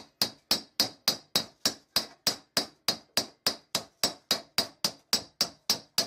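Hammer blows on sheet metal laid over a small steel bench anvil, flattening the metal: a steady run of about three to four strikes a second, each with a short metallic ring.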